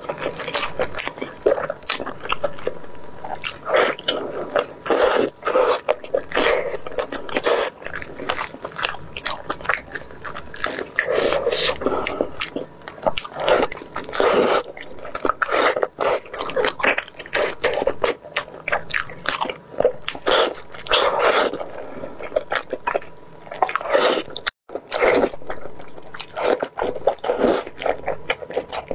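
Eating braised pork knuckle: wet biting, chewing and lip-smacking as meat and skin are sucked off the bone, in a dense run of short smacks. The sound cuts out for a moment near the end.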